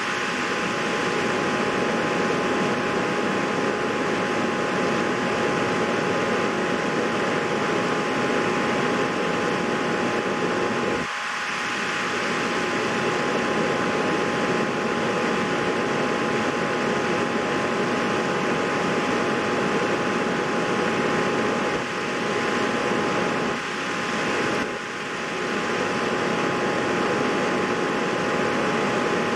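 Steady whir of an electric fan with a constant high whine, briefly dipping a few times.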